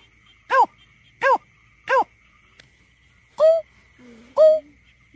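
Greater painted-snipe giving its hooting call: a series of four short, arched notes about two-thirds of a second apart, then after a pause two lower notes about a second apart.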